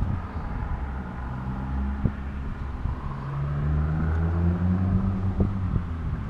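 Low engine rumble from a running engine, its pitch shifting a little, with a few short knocks from the camera being handled.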